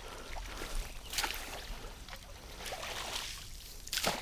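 Long-handled dip net swept through shallow muddy water and grass while netting for crawfish bait: water splashing and swishing, with sharper splashes about a second in and near the end.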